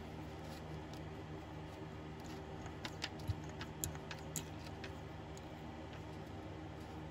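A handful of small sharp clicks and taps about three to four and a half seconds in, from a plastic fill tube and bottle being handled at the rear-end fill hole of a garden tractor while gear fluid is added. A steady low hum runs underneath.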